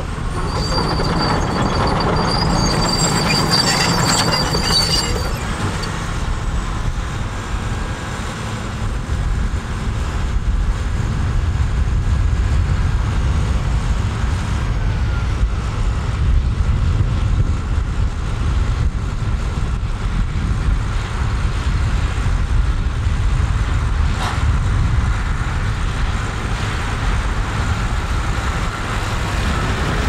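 Heavy diesel earthmoving machinery running: a Cat D6T crawler bulldozer, and after it a Cat articulated dump truck on the move. There is a steady low engine rumble throughout, with a high, steady squeal over it for the first few seconds.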